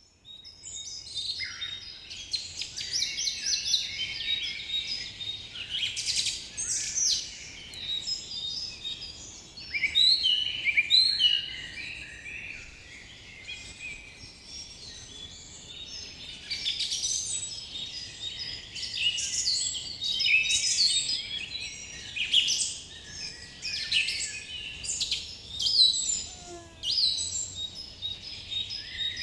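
A chorus of many small birds chirping together, short high calls overlapping densely without a break.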